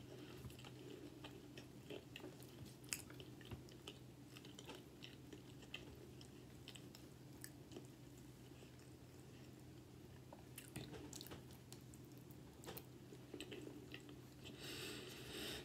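Close-miked chewing and small wet mouth clicks of someone eating cheese fries and fried fish, over a low steady hum. A brief louder rustle comes near the end.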